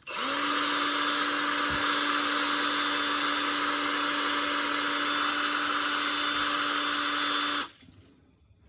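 Electric drill spinning a rusty mower wheel bolt against a strip of sandpaper, cleaning rust and gunk off the surface the wheel turns on. The motor spins up at the start, runs steadily with a scraping hiss from the abrasive for about seven and a half seconds, then stops suddenly.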